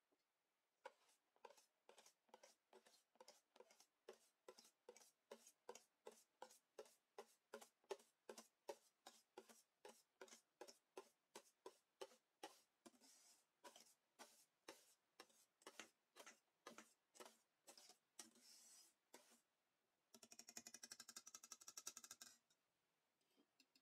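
Wire balloon whisk stirring cake batter in a stainless steel bowl: faint, regular strokes of the wires against the metal, about two and a half a second, as meringue is mixed into the yolk batter. Near the end the strokes give way to a rapid rattle lasting about two seconds.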